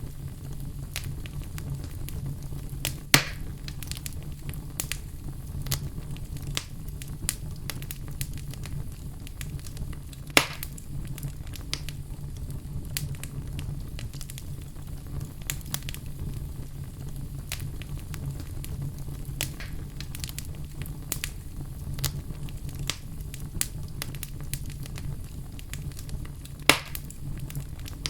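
Fire in a fireplace crackling steadily over a low rumble of flame. Small snaps come scattered throughout, with three much sharper, louder pops: a few seconds in, about ten seconds in, and near the end.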